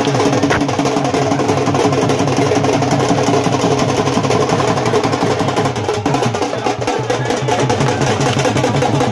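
Fast, steady folk drumming on dhol-type drums for a Deewari stick dance, with sharp wooden clacks mixed into the rhythm.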